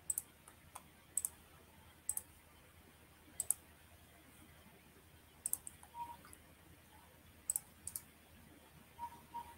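Computer mouse clicking faintly and sporadically, every second or two, several of them quick double clicks.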